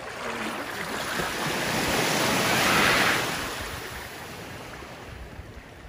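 Small waves washing up onto a sand beach at the water's edge, a rushing hiss that swells to its loudest about three seconds in and then falls away.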